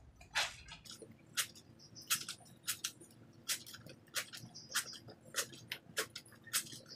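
Soapy wet clothes being scrubbed by hand, the fabric rubbed against itself over a plastic bucket: short wet rubbing strokes, about one to two a second and uneven.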